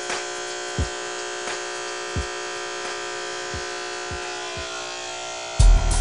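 Electric hair clipper running with a steady, even hum, with a few soft low thuds. A much louder sound with deep bass cuts in abruptly near the end.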